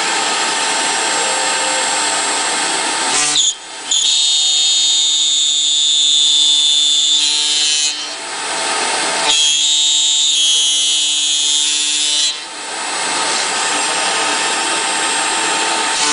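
High-speed spindle of a CNC copy router (HSD 4.5 kW) whining as its cutter mills holes and grooves in aluminium profile. The high steady whine and cutting noise break or change briefly about three seconds in, around eight seconds and around twelve seconds, as the cutter moves between cuts.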